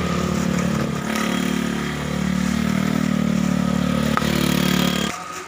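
A motor vehicle engine running steadily close by, swelling slightly through the middle and cutting off sharply about five seconds in. A single sharp click comes about four seconds in.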